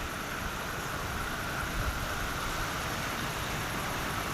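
Steady outdoor background noise: wind rumbling on the microphone, with a faint steady high tone.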